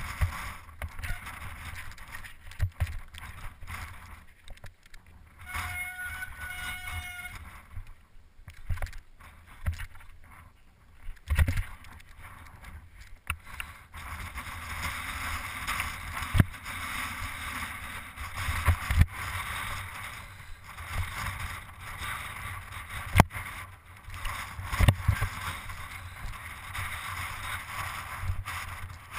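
Bicycle rattling and knocking over a rocky mountain path, with wind rumbling on the camera's microphone. A brief high tone sounds for about a second and a half around six seconds in.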